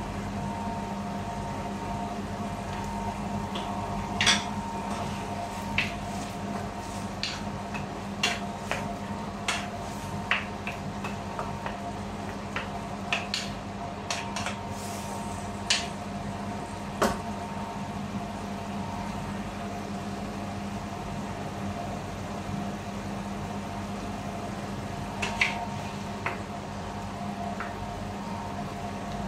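Sponge gourd and mushrooms simmering in a frying pan under a steady hum, with scattered light clicks and taps as a seasoning jar is shaken and handled over the pan.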